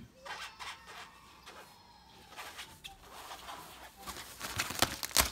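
Nylon fabric of a pop-up tent rustling and crackling as a kitten paws and claws at it inside the tent's pocket, with sharper, louder rustles near the end.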